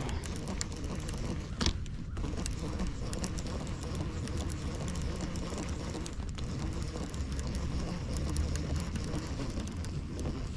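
Quantum Optix 60 fishing reel being cranked to bring in a hooked catfish: a steady mechanical ticking from the reel's gears, with one sharp click about a second and a half in.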